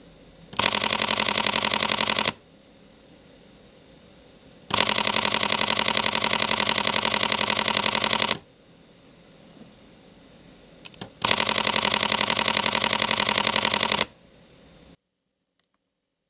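Sony ZV-E10 mirrorless camera's shutter firing in continuous burst mode: three runs of rapid clicks, roughly two, four and three seconds long.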